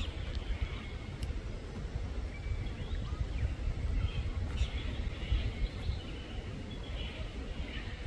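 Faint, scattered calls of forest birds, short chirps and whistles, with a slightly busier burst about halfway through and another near the end, over a steady low rumble.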